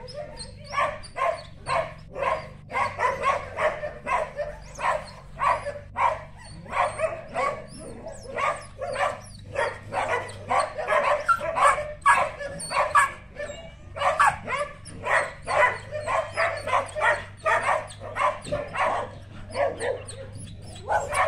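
A dog barking over and over in short, sharp barks, about two or three a second, with brief pauses now and then.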